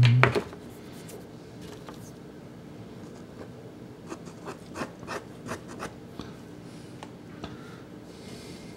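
Sennelier soft pastel stick rubbing and scratching across Sennelier La Carte pastel paper, a run of short strokes about four to six seconds in.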